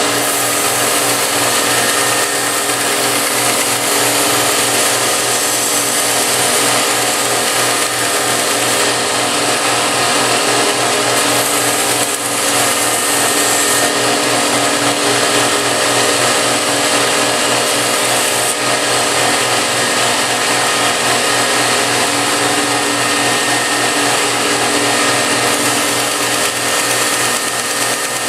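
Home-built 2x72 belt grinder running steadily, its motor humming under the rushing hiss of the abrasive belt; the hiss shifts in strength a few times.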